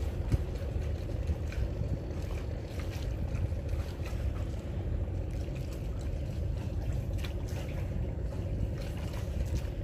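A steady low motor drone runs throughout, with scattered faint clicks over it.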